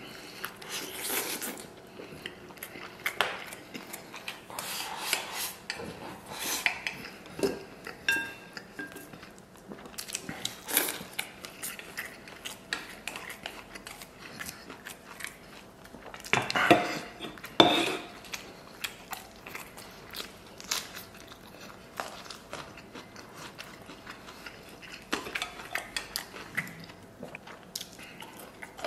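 Wooden chopsticks clicking and scraping against a stainless steel rice bowl as rice and braised pork ribs are eaten, with chewing between the clicks. A louder clatter comes about halfway.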